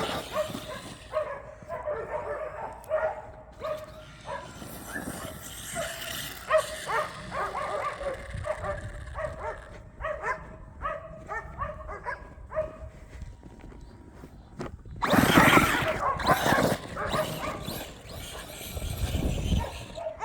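A dog yipping and whining in many short, repeated calls, with a louder rushing noise for a couple of seconds about fifteen seconds in.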